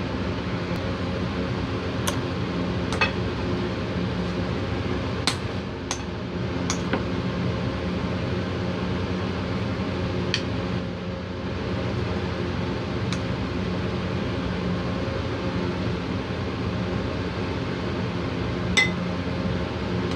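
Light clinks of a utensil against a ceramic bowl and plate, about eight spread irregularly, the last one near the end the loudest, as minced fish filling is scooped and stuffed into vegetable slices. A steady low hum runs underneath.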